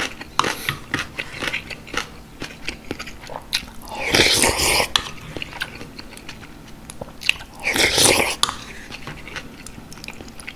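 Close-miked wet chewing and mouth clicks from eating rice in beef short rib soup. Two louder slurps of broth and rice from a spoon come about four and eight seconds in.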